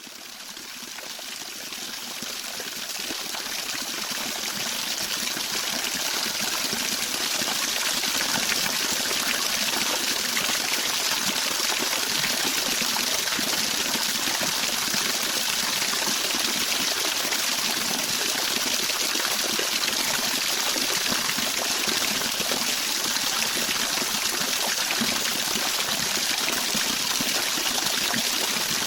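Running water of a stream, a steady rushing hiss fading in over the first several seconds and then holding even.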